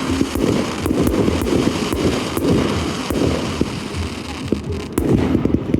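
Fireworks display going off in quick succession: a dense run of sharp bangs and crackles over a continuous rumble.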